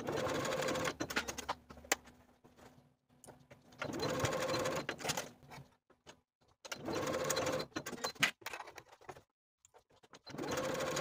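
Electric domestic sewing machine stitching through folded linen-blend fabric in four short runs, each lasting a second or so, with pauses between them. A few small clicks fall in the pauses.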